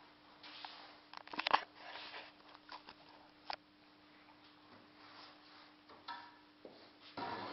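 Moulding sand being packed and pressed by hand into a foundry flask around the sprue and riser pins: scattered scrapes and soft knocks. A cluster of sharper knocks comes about a second and a half in, with another click a couple of seconds later and a rustle near the end.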